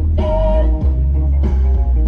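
Loud guitar rock music with a strong bass line, played on the Honda Civic's competition car audio system.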